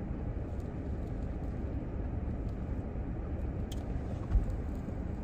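Steady low rumble inside a car's cabin, with a faint click a little past halfway and a short soft thump just after it.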